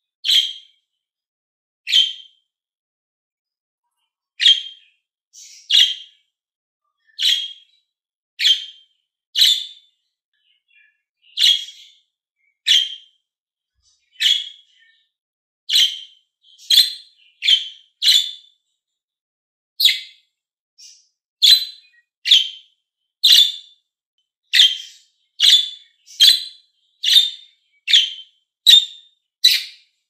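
Budgerigar giving short, high single chirps over and over, about one a second, coming a little faster in the second half.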